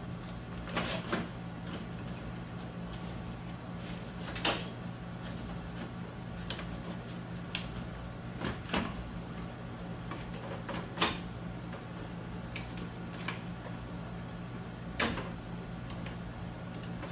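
Irregular clicks and knocks of a hand tool and the plastic radiator fan shroud being fitted and fastened into a Jeep Cherokee XJ's engine bay, the sharpest about four and a half seconds in, over a steady low hum.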